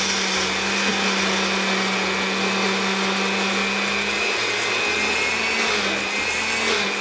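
Countertop blender with a glass jar running steadily at full speed, its motor giving a constant whine over the churning of the ingredients. It starts to wind down right at the end.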